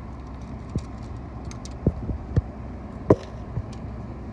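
Fishing rods and tackle being handled: a handful of light knocks and clicks, the sharpest about three seconds in, over a steady low rumble.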